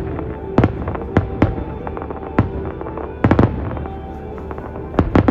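Aerial firework shells bursting in a series of sharp bangs, about ten in all. Some come in quick pairs, with a quick run of three a little past the middle.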